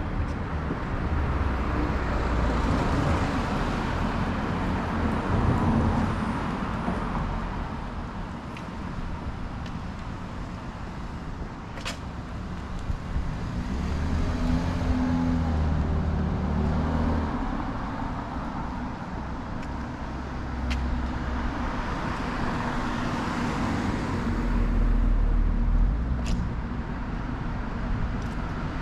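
Road traffic: cars passing on a nearby street, with engine hum and tyre noise swelling and fading, loudest a few seconds in and again near the end.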